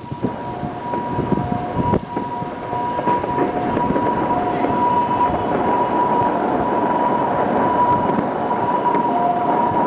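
Continuous fireworks barrage, a dense mass of bangs and crackling that builds up over the first few seconds and then stays loud. Sharp reports stand out near the start, and a steady high tone runs through it.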